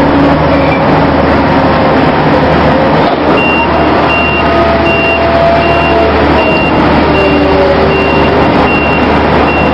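Mobile harbour crane running with a steady low machinery drone while it hoists a double stack of containers. About three seconds in, a high warning beeper starts and beeps evenly a little under twice a second.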